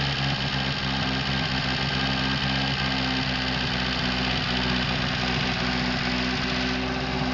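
Freshly overhauled 1972 Universal Atomic 4 four-cylinder gasoline inboard engine running steadily at idle.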